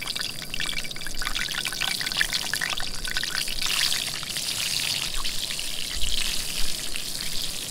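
Breaded trout chunks frying in hot oil in a cast iron skillet: a steady sizzle full of small crackling pops. It swells for a moment about six seconds in, as another piece goes in.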